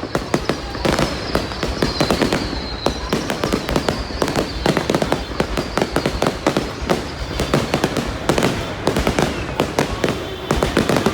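Aerial fireworks display going off in a dense, continuous barrage of bangs and crackles, with a faint high whistle slowly falling in pitch over the first few seconds.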